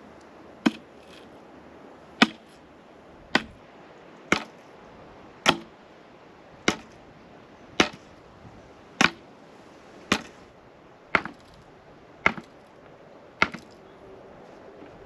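A bamboo carport pole being pounded into the ground from its top: twelve sharp knocks, about one a second, each with a short ring.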